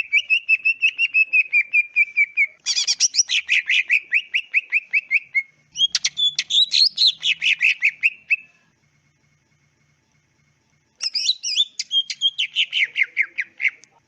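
Cucak ijo (green leafbird) singing: four loud phrases of rapid repeated high notes, with a gap of a couple of seconds before the last phrase.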